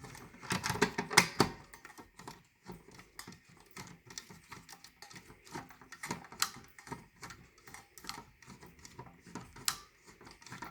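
Irregular light clicks and taps of hands handling equipment, loudest in the first couple of seconds, over a faint steady high-pitched hum.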